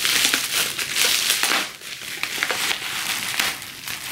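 Bubble wrap crinkling and rustling in the hands as it is unwrapped, with many short crackles.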